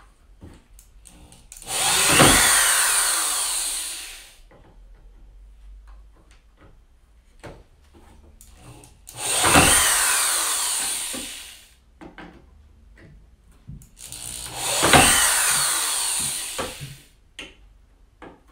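Green cordless drill fitted with a square driver bit driving screws into wood, in three runs of about two to three seconds each. The motor's pitch falls during each run as the screw bites in under load, with light handling knocks between runs.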